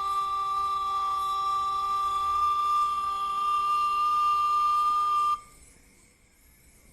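A steady, whistle-like tone held on one pitch, with fainter steady tones above and below it, that cuts off suddenly about five seconds in.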